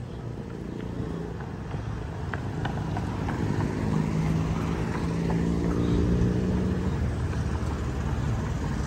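Motor vehicle engine on a city street: a low, steady engine hum over traffic noise that grows louder over the first few seconds and then holds.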